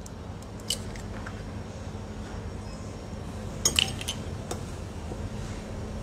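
Light taps and clinks of an egg being cracked and separated with an egg separator over a bowl, with a louder cluster of sharp taps about four seconds in, over a steady low room hum.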